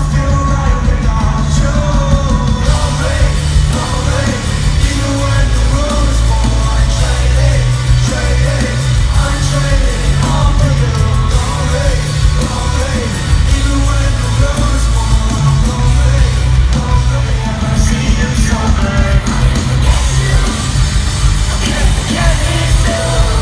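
Live rock band playing loudly, with heavy, sustained bass under a voice singing and yelling.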